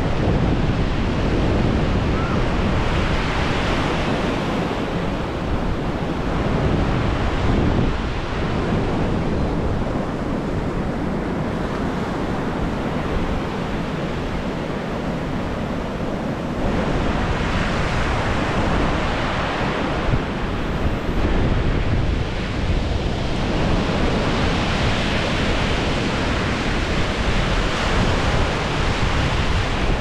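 Sea surf washing onto a sandy beach, with wind buffeting the microphone in a constant low rumble. The wash swells and ebbs, easing in the middle and growing louder again just past halfway.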